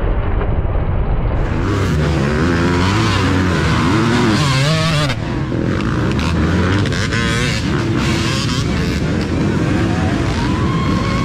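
Several dirt bike engines revving unevenly as riders work the throttle through a muddy turn at low speed, pitch rising and falling. One engine climbs in pitch near the end.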